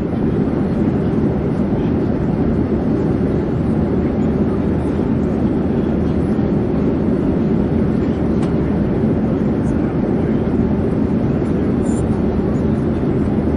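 Airplane in flight: a steady, unchanging low drone of engine and air noise.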